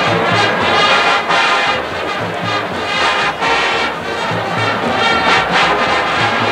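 Marching band brass playing a swing-era big band tune with a steady beat, trombones and trumpets prominent.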